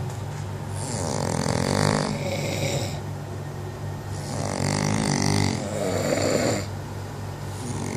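A person snoring loudly: two long, rasping snores about three and a half seconds apart, over a steady low drone.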